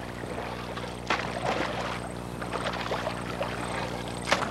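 Two splashes of a canoe paddle striking the water, about a second in and again near the end, over a steady low hum.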